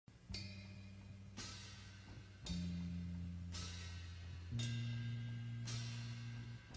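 Music with a drum kit: a cymbal hit about once a second over held bass notes that change every couple of seconds.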